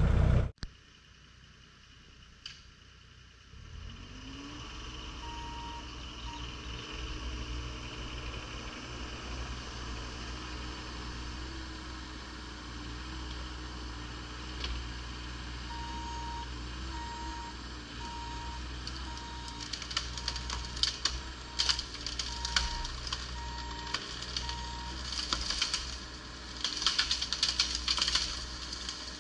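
Bobcat E35 mini excavator's diesel engine running steadily, starting about four seconds in. Midway its alarm beeps about once a second for several seconds, and near the end come bursts of cracking and snapping as the bucket works branches and brush of the pine tree.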